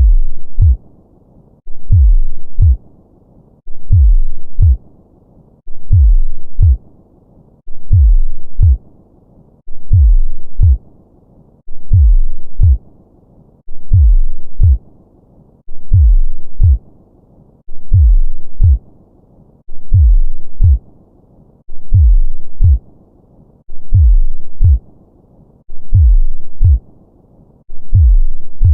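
Heartbeat sound effect: slow, deep lub-dub double thumps, one pair about every two seconds, with a faint low hiss between the beats.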